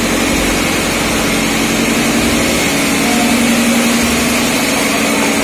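Diesel engines running steadily in a tugboat's engine room: a loud, unbroken machinery drone with a constant low hum.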